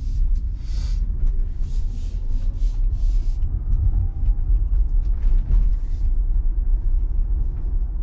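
Low rumble of road and wind noise from an electric Tesla Model Y pulling away and gathering speed. A few short bursts of hiss come in the first few seconds and again about five seconds in.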